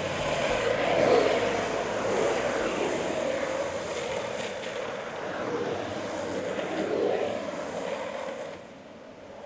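Longboard urethane wheels rolling and sliding on asphalt with rushing wind, a steady roar that swells and eases as the riders carve, fading near the end.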